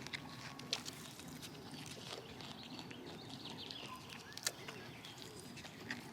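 Scattered light clicks and crunches, one sharper than the rest about four and a half seconds in, with faint bird chirps.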